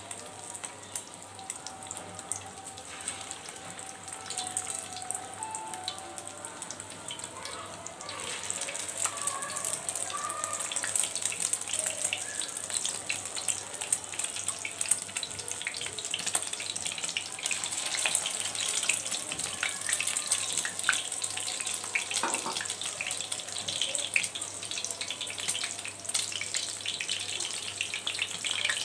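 Egg-coated minced-beef kababs sizzling and spattering in hot oil in a frying pan, a dense crackling hiss that grows louder about eight seconds in as more kababs go into the oil.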